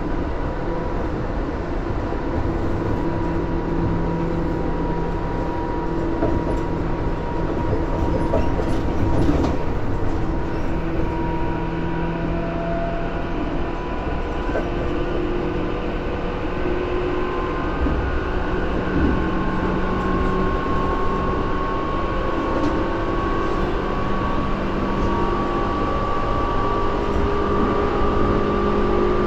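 Tobu 10000 series electric train running: a steady rumble of wheels on rail with motor and gear whine, whose pitch rises slowly over the last several seconds.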